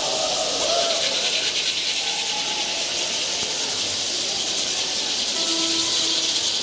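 Dense, steady, hissing rattle of many Parachicos dancers shaking their tin chinchín rattles together as the crowd moves, with faint crowd voices underneath.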